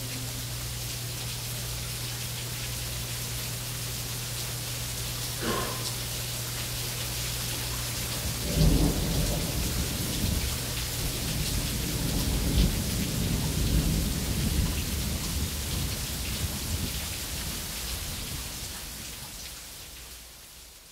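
Recorded rain-and-thunder nature soundtrack: steady rain with a low hum at first, then thunder rolling in about eight seconds in, peaking and dying away, before the whole fades out.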